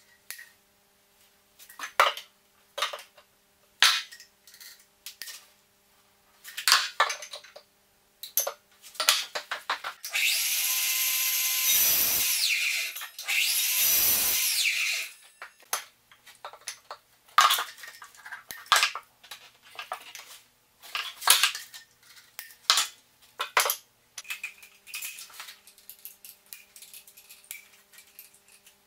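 Sliding mitre saw run twice in quick succession, each run about two seconds, cutting a length of wooden skirting board. Before and after, scattered knocks, taps and clicks of boards and hand tools being handled.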